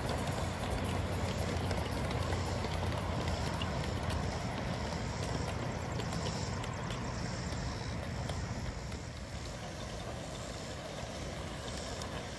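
Miniature ride-on train rolling along its steel track, an electric MOW car hauling a steam locomotive and cars: steady running noise from the wheels with light rhythmic clicking, easing off somewhat after about two-thirds of the way through as the train draws away.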